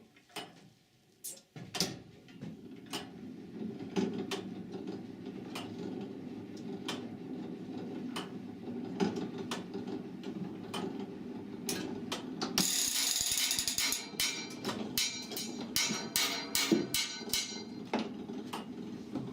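Church turret clock mechanism running: a steady mechanical drone with regular clicks. About two-thirds of the way through it breaks into a louder, faster clatter of gears and ratchets as the clock reaches the hour and lets off its strike train.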